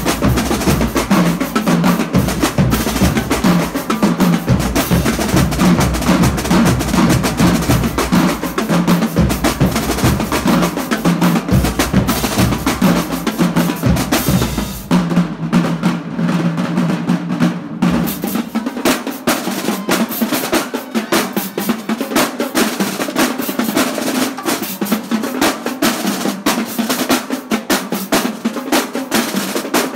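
Marching drumline playing a fast, dense cadence on snare drums, tenor drums and bass drums. A little past halfway the deep bass-drum part drops out and the snares and tenors carry on alone.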